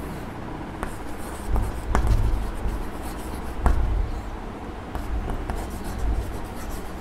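Chalk writing on a blackboard: short scratching strokes with sharp taps as the chalk meets the board.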